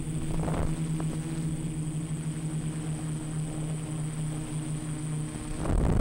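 Quadcopter's electric motors and propellers buzzing at a steady pitch. Just before the end a rush of wind noise comes in and the sound gets louder.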